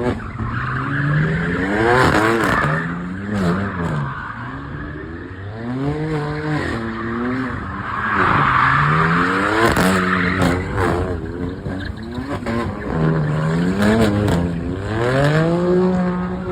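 Lamborghini Huracán STO's naturally aspirated 5.2-litre V10 running hard, its pitch climbing and falling again several times, with a raspy edge at the peaks.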